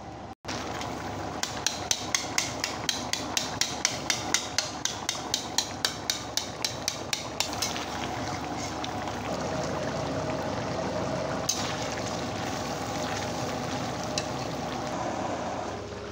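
A metal spoon stirring potato-tomato curry in a steel kadhai, clinking against the pan about four times a second for some six seconds. After that the clinking stops and a steady sizzling hiss of the cooking curry carries on.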